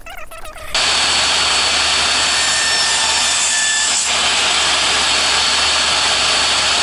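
DeWalt DW745 10-inch portable table saw running and ripping walnut boards, a loud steady noise that starts abruptly about a second in, with a brief dip midway.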